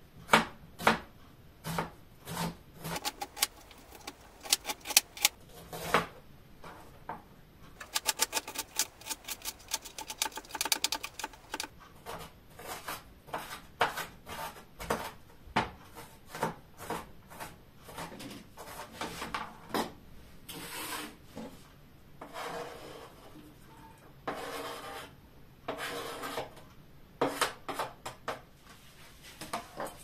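Kitchen knife chopping on a plastic cutting board: irregular taps and knocks, with a fast even run of chops about eight seconds in.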